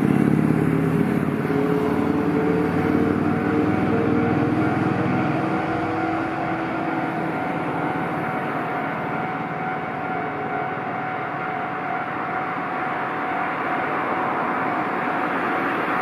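Railway level-crossing warning alarm ringing steadily at one pitch while an Iyotetsu 3000 series electric train approaches. A lower engine-like drone, slowly rising in pitch, fades out over the first several seconds, and the train's running noise grows toward the end.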